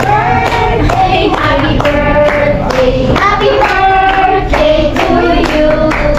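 Voices singing a melody over a steady low backing, with hands clapping.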